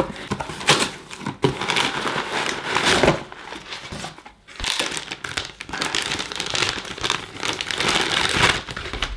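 A cardboard box being torn open by hand, flaps ripping and rustling, then white packaging wrap being handled and crinkled open. There is a brief lull about four seconds in.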